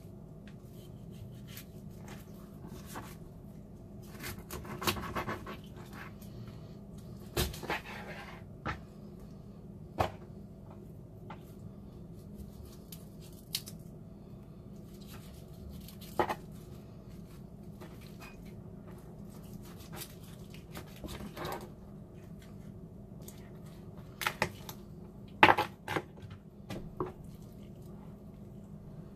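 Kitchen knife cutting raw chicken legs and thighs off the bone on a plastic cutting board: scattered short clicks and taps of the blade against the board, the loudest a few seconds before the end, over a faint steady hum.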